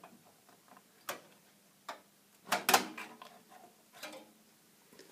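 Graphics card being pulled out of its slot in a desktop PC case: a few sharp clicks and knocks of the card, bracket and slot, the loudest cluster about halfway through.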